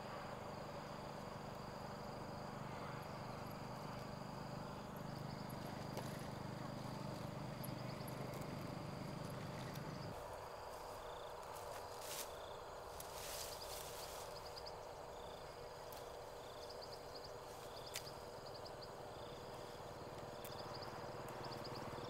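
Insects, cricket-like, chirping in repeated short high trills over a faint steady outdoor background. A low hum stops about halfway through, and there are a few brief knocks or rustles later on.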